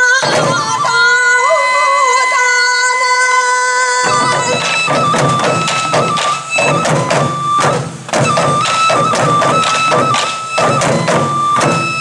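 Traditional sansa dance music: a Japanese bamboo flute plays held, wavering notes alone, then about four seconds in a group of waist-worn taiko drums joins with fast, steady strikes under the flute melody.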